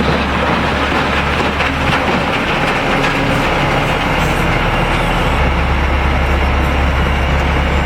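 Pezzolato PTH 1300/1500 drum wood chipper, driven by a Caterpillar diesel engine, running loudly while chipping hard wood, with a dense crunching noise over the engine drone. The low engine note drops about two seconds in and comes back up about five seconds in as the load changes.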